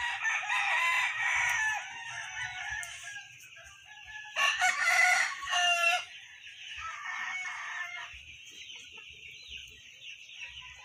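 A rooster crowing, with chickens clucking: a call of about two seconds at the start, a louder crow about four and a half seconds in, and a fainter call around seven seconds, over a steady high buzz.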